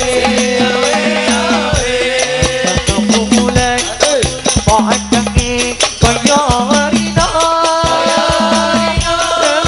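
Hadrah sholawat ensemble playing: rebana frame drums beat a busy, steady rhythm under a wavering sung melody, which settles into long held notes about seven seconds in.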